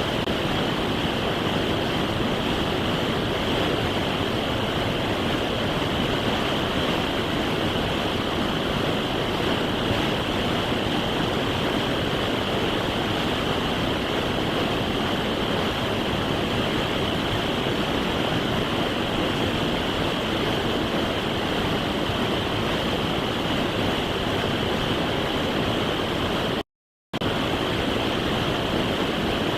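Steady rush of a salmon creek's fast water, unchanging throughout, with a half-second dropout near the end.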